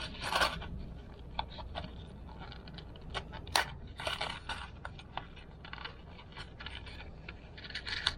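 Small hard parts being handled and picked through: scattered clicks, light clatter and scraping, loudest about half a second in and again about three and a half seconds in.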